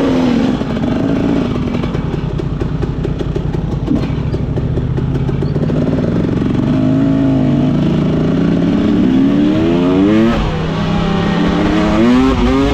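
Husqvarna TE300 two-stroke enduro motorcycle being ridden, the engine revving up and dropping back several times as the rider works the throttle, most clearly in the second half.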